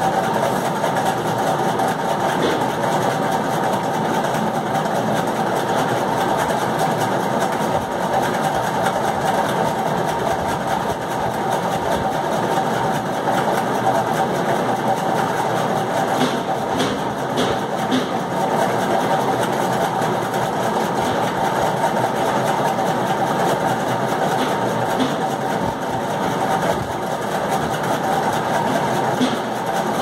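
A steady mechanical hum like a running motor, with a few light clicks about halfway through.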